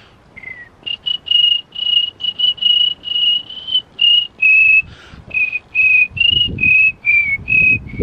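A man whistling a cricket imitation: a run of short, high chirping whistles, two to three a second, the pitch dipping slightly about halfway through.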